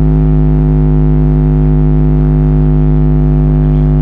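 A steady, loud low bass test tone pumped through a large subwoofer sound system. It is held at one unchanging pitch and is heavily distorted, with strong overtones.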